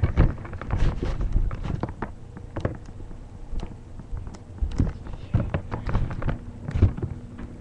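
Irregular knocks, bumps and rustles of handling and body movement right against the camera's microphone, a few of them sharp and loud.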